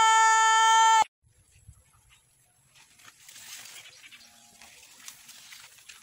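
A man's voice holding one long, loud, steady high note that cuts off abruptly about a second in. Only faint background noise follows.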